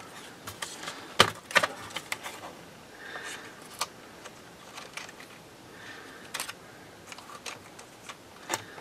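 Plastic clicks and knocks from a Lenovo ThinkPad laptop's palm rest being pressed and worked into place. A cluster of sharp clicks comes about a second in, followed by scattered single clicks and two brief plastic scrapes.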